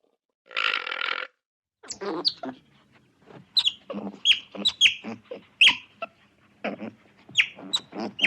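A brief noisy burst, then from about two seconds in a busy run of short animal calls, each a sharp high falling note over lower grunting pulses.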